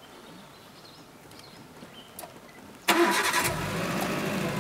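A vehicle engine cranks and starts suddenly about three seconds in, then settles into a steady idle. Before it, a few faint bird chirps.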